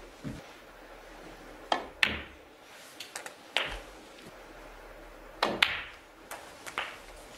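Snooker balls clicking: the cue tip striking the cue ball and balls knocking together, a series of sharp clicks with short ringing tails, some in quick pairs.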